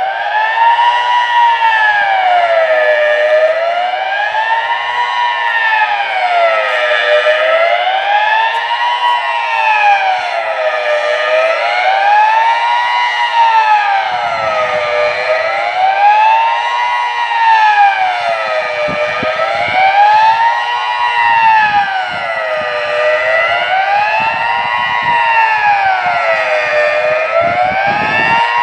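Swiss civil defence siren sounding the General Alarm in its annual test: a loud wailing tone that rises and falls slowly and evenly, over and over.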